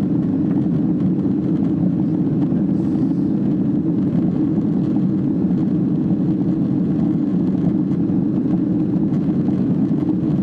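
Steady cabin noise of a Boeing 767 in the climb: the even roar of the twin jet engines and the airflow, heard from inside the passenger cabin.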